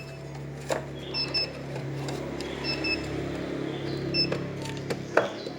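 Queue-ticket machine's printer running with a steady low hum for about four and a half seconds, framed by sharp clicks near the start and the end, while short high beeps sound about every second and a half.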